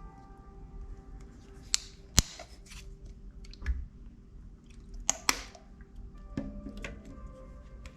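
Slime being worked by hand, with sharp clicking pops of trapped air a few times, loudest around two and five seconds in, among softer sticky ticks.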